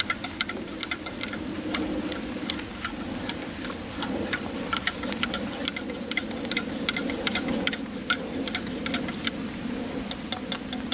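Campfire crackling: irregular sharp pops and snaps over a steady low rush.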